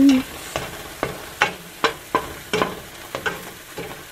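Plant-based liquid egg sizzling as it scrambles in margarine in a stainless steel frying pan, while a slotted spoon scrapes and taps against the pan about twice a second.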